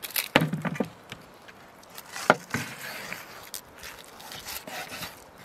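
A large kitchen knife chopping bone-in veal on a wooden cutting board: one sharp, loud chop about two seconds in, with lighter knife knocks around it. A brief low pitched sound comes just after the start.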